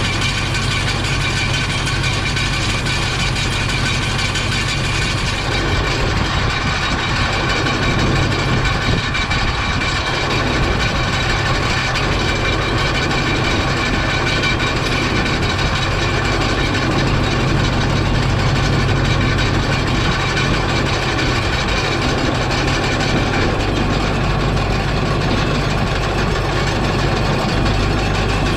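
A vehicle engine running steadily, its note shifting slightly about three quarters of the way through.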